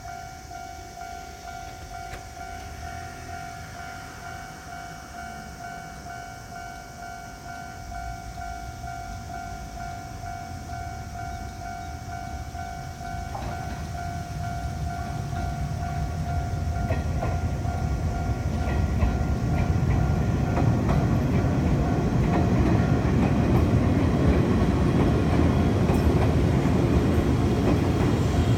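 Japanese level-crossing alarms ringing in a steady fast pulse, the front and rear alarms out of step with each other. A train approaches and passes; its rumble and wheel clatter grow over the second half until they are the loudest sound.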